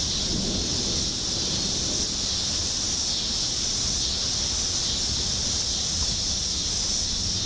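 Strong storm wind blowing steadily, rumbling on the microphone, with a steady high hiss over it.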